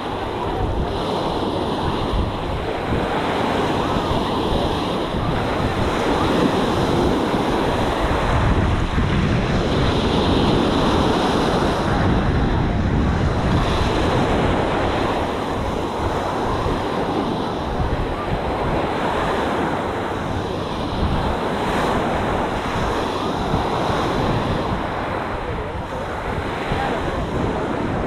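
Small ocean waves breaking and washing up a sandy shore in a steady wash of surf, mixed with wind buffeting the microphone.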